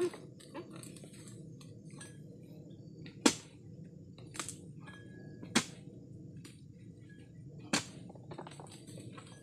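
Sharp chopping strikes of a long-pole harvesting blade cutting into an oil palm's crown, four hard blows about two seconds apart, with a few small ticks between them.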